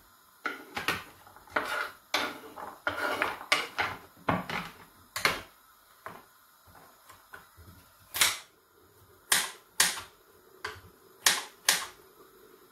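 Kitchen knife chopping carrots on a wooden cutting board: sharp, irregular knocks, close together in the first half and single strokes spaced about half a second to a second apart later.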